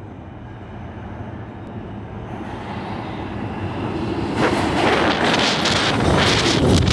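R160 subway train approaching through the tunnel and pulling into the station, its rumble growing steadily louder, with a rush of rail clatter and wheel noise from about four seconds in as the lead car reaches the platform.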